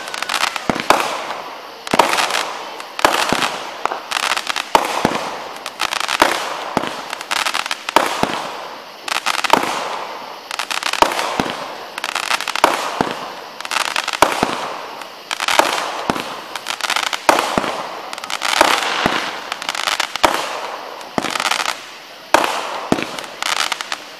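Fireworks going off in quick succession: sharp bangs about one to two a second, with crackling in between.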